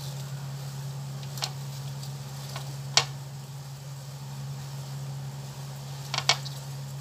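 Light clicks and taps of things being handled on a kitchen counter during vegetable prep, the sharpest about three seconds in and a short rattle of clicks near the end, over a steady low hum.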